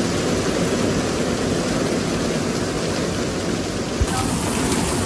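Heavy rain pouring down onto a street and parked cars, a dense, steady downpour, with a single knock about four seconds in.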